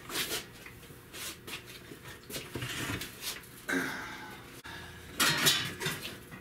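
Metal clinks, knocks and scraping in the engine bay as the engine-driven cooling fan is worked free, with a louder scraping rattle about five seconds in.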